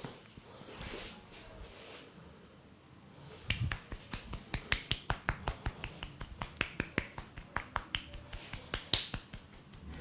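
Hands striking the head in quick, sharp percussive taps, about six a second, in Indian head massage tapping. The taps start about three and a half seconds in, after a quieter stretch, and stop near the end.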